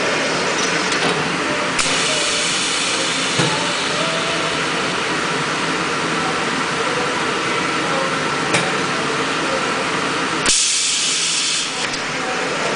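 Ultrasonic packaging welding machine running a sealing cycle: a steady hissing machine noise that gets louder about two seconds in, a few sharp clicks, and a loud burst of hiss about ten and a half seconds in lasting about a second, after which it goes quieter.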